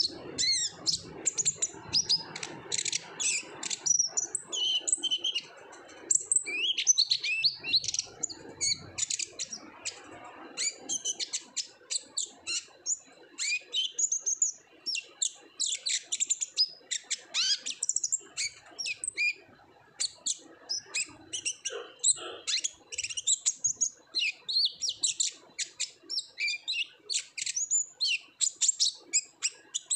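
Kolibri ninja sunbird singing hard: a fast, continuous run of high, thin chirps and short trills.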